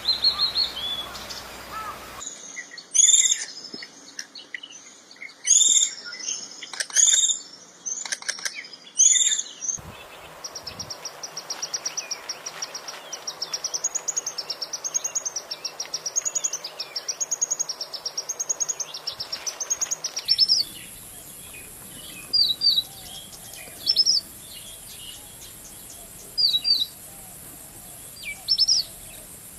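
Songbirds singing in several spliced recordings: loud, varied whistled phrases, then a long fast wavering trill, then short sharp chirps repeated every second or two.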